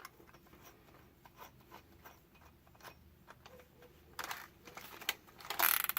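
Scattered light clicks and taps of things being handled on a workbench, becoming busier and louder about four seconds in with a short clattering rattle near the end.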